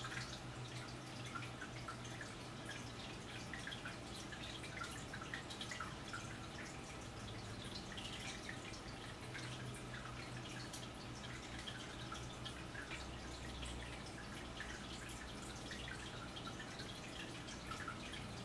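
Faint room tone: a low steady hum with many light, irregular ticks scattered through it.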